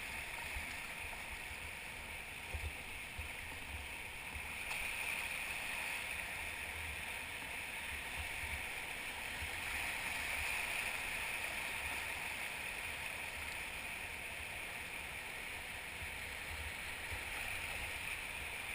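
Steady rush of whitewater river current around a drifting raft, swelling and easing gently.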